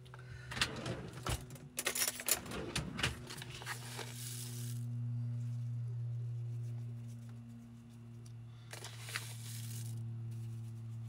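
A paper bag of granulated sugar rustling and a teaspoon scooping and clinking in it for the first few seconds, then sugar sprinkled over sliced apples in a saucepan, heard twice as short hisses. A steady low hum runs underneath.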